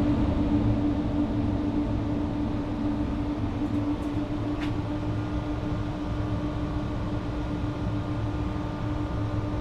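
HVAC ventilation fan and motor running with a steady hum: one droning tone over a low rumble.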